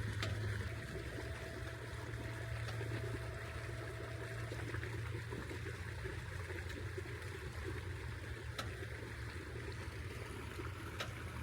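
Engine running steadily with a low hum, with a few faint clicks.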